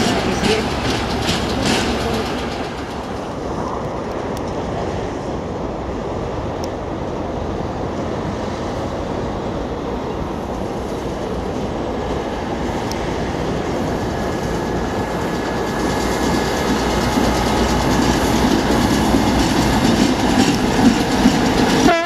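ChME3 shunting diesel locomotive running along the track, its six-cylinder diesel engine running steadily while its wheels click over the rail joints. The sound grows louder near the end as the locomotive draws level.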